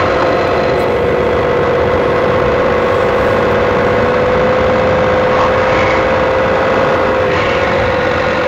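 Steady engine-idle sound effect made by recording a cheap electric fan: a constant hum with one steady mid-pitched tone running through it.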